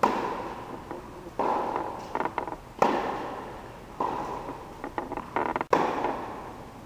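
Tennis ball struck by rackets in a rally on an indoor court, each hit a sharp pop with a long echo from the hall. Five hits, roughly one every second and a half, with lighter taps between them.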